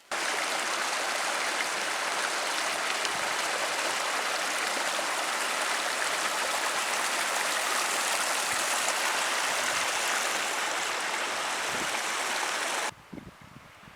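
Steady rush of a flowing stream, cutting in sharply at the start and stopping abruptly about a second before the end.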